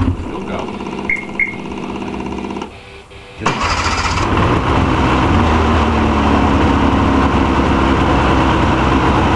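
Ski-Doo Mach Z snowmobile engine being started: a steady mechanical hum cuts out nearly three seconds in. About half a second later the engine catches with a sudden rise and runs steadily.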